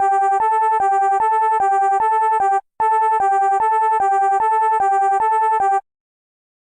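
Synthesized alarm tone of a fan-made EAS emergency alert, rapidly alternating between two close pitches. It sounds in two bursts of about three seconds with a short break between, then cuts off suddenly near the end.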